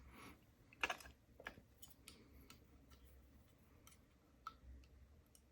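Faint, scattered small metal clicks and ticks, the sharpest about a second in, as the pins and spools of a brass Ruko oval lock cylinder are handled while it is taken apart.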